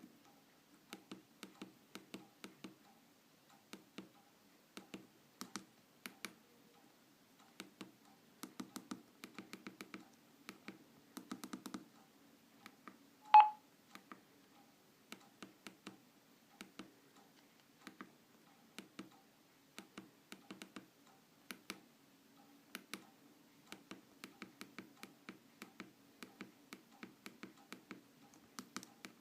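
Irregular light clicks and taps of a mobile phone being operated, some in quick runs, with one short, loud beep from the phone about halfway through.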